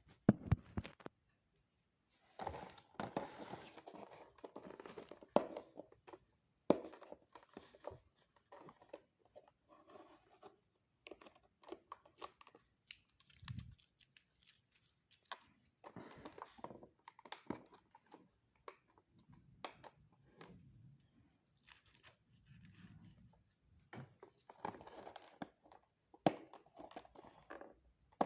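Packaging of a diecast model airliner being opened and handled: plastic and paper tearing and crinkling in irregular bursts, with scattered small clicks and knocks.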